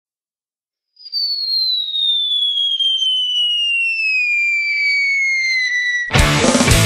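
A single high whistle that slides steadily down in pitch for about five seconds, with faint crackle beneath it. About six seconds in it cuts off as a loud punk rock band comes in abruptly.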